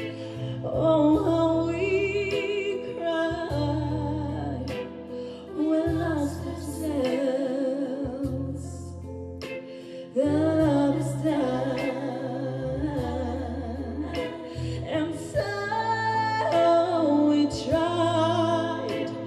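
A woman singing a slow ballad into a microphone, with vibrato on her held notes, over a soft accompaniment of sustained low bass notes.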